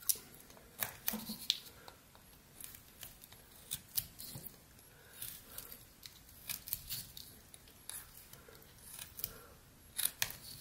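Pocket knife blade cutting into hard pine: short, irregular slicing and shaving strokes, a few sharper than the rest.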